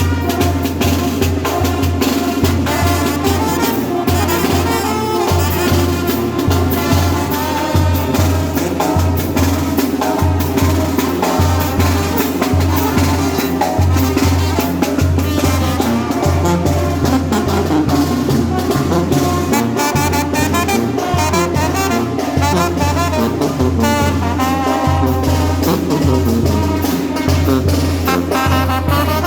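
A village brass band of children (banda de viento) playing a lively tune: trumpets and other brass over a steadily pulsing low bass line and drums.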